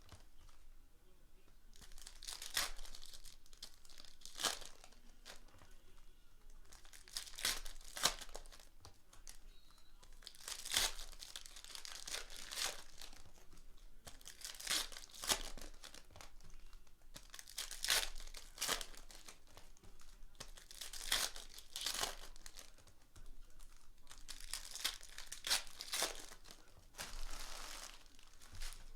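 Foil trading-card pack wrappers being torn open and crinkled, in repeated bouts of rustling every second or two.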